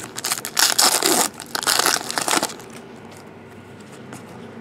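Trading card packaging crinkling and rustling in the hands as cards are unwrapped and handled. Loud bursts come in the first two and a half seconds, then it settles into quieter handling.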